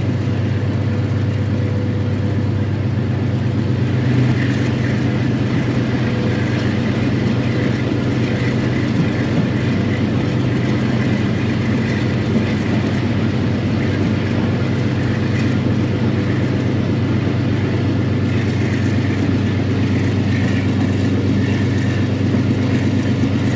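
Passenger train heard from a carriage as it gathers speed: the 2200 hp General Electric diesel-electric locomotive's engine drones steadily in a low register, over the rumble of the wheels on the track.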